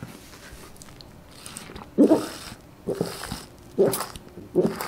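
A person drinking through a metal straw, swallowing in gulps. Four gulps at a steady pace of about one a second begin about two seconds in.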